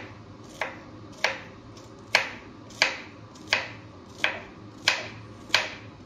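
Small paring knife slicing tender banana stem into rounds, each cut ending in a sharp tap of the blade on a wooden chopping board. About eight evenly spaced cuts, roughly one every two-thirds of a second.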